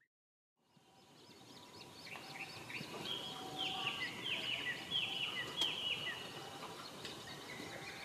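Several birds calling and chirping over a faint outdoor hiss, with a run of four or five short down-slurred calls in the middle. The sound fades in from silence at the start.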